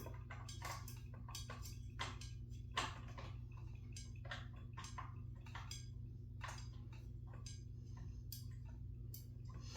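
Irregular light clicks and ticks of a screwdriver working the screws that hold a ceiling fan's blades, a few each second, over a steady low hum.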